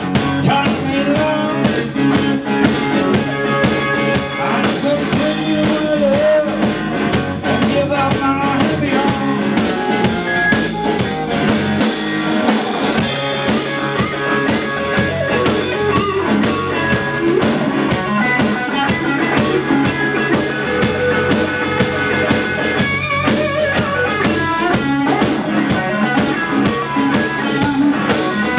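A live blues-rock band playing: electric guitar leading over bass guitar and a drum kit.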